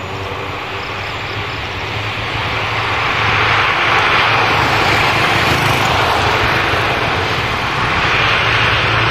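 Twin-turboprop airliner's engines and propellers running at high power as it rolls along the runway, a loud rushing noise over a steady low hum. It grows louder over the first three or four seconds as the aircraft nears, then holds steady.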